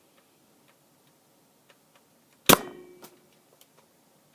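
A Nerf dart blaster firing once: a single sharp pop about two and a half seconds in, with a short ringing decay, with only a few faint clicks before it.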